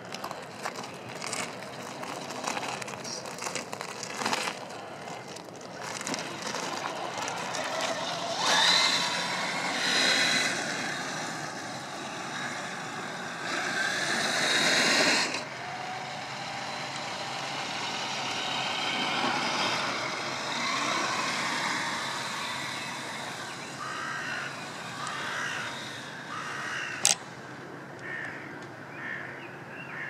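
1/8-scale Absima CR1.8 RC crawler driving over loose gravel: its electric drivetrain runs while the tyres crunch stones, with clicking pebbles in the first seconds and louder stretches in the first half. A single sharp click comes near the end.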